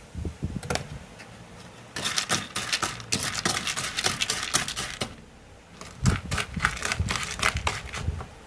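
Unpopped popcorn kernels clattering as they are stirred in a bowl with sugar and oil: rapid dense clicking in two bouts, a pause of about a second between them.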